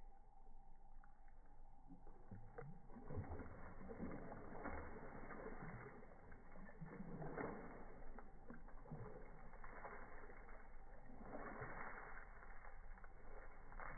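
A dog splashing and sloshing in shallow lake water as it tugs a waterlogged log loose with its mouth, then scuffling and scraping as it drags the wood up the dirt bank; faint, irregular splashes and scrapes.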